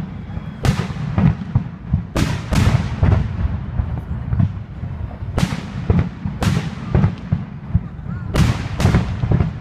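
Aerial fireworks shells bursting: about seven sharp booms, several in quick pairs, each trailing off in an echo, over a steady low rumble.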